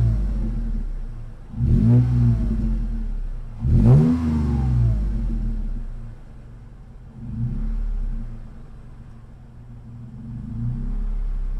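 2020 Toyota 4Runner TRD Pro's 4.0-litre V6 through the TRD exhaust with its side-exit tip, revved in quick throttle blips while parked. The engine falls back from a rev, gives two sharp blips about two seconds apart, then a softer blip, and settles to a steady low idle.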